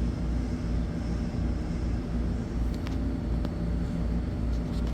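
Steady low machine hum and rumble from the powered-on Vendo drink vending machine, its refrigeration unit running, with a few faint clicks about three seconds in.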